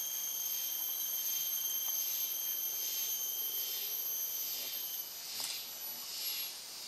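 Rainforest insects droning: a steady high-pitched whine, joined in the second half by a pulsing chorus.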